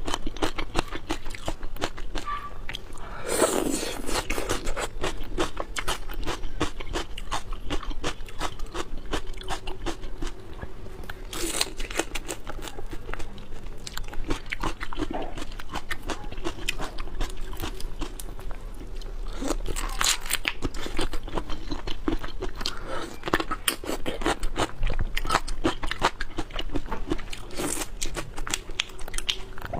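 Close-miked eating: steady wet chewing with many small crunchy clicks, and a louder bite every several seconds.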